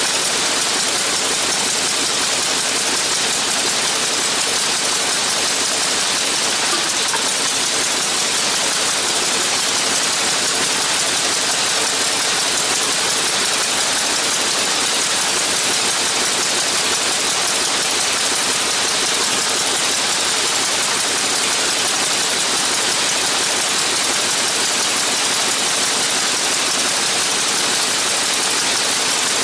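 Spirit of St. Louis replica's radial engine and propeller running steadily, without any change in speed.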